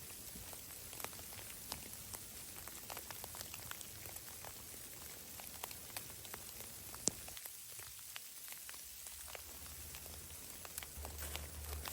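Precipitation pattering on a surface: scattered light ticks over a faint steady hiss, with one sharper tick about seven seconds in.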